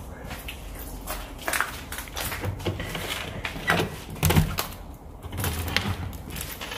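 Footsteps on a debris-strewn floor: irregular crunches and scuffs roughly at walking pace, with a few heavier knocks, in a bare room.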